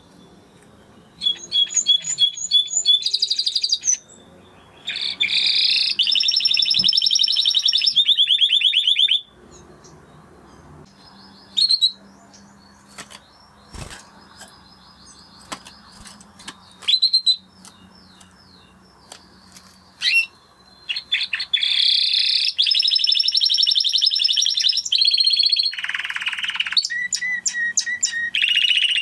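Spanish Timbrado canary singing: long phrases of fast, rolling trills and repeated notes, with a lull of short scattered chirps in the middle before the song resumes.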